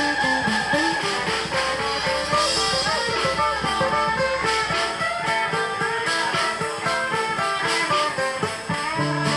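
Live blues-rock band playing an instrumental passage: electric guitar lines over a steady drum beat.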